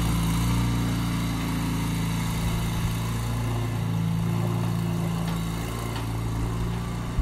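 Bobcat skid-steer loader's engine running at a steady speed as the machine turns and spins on gravel.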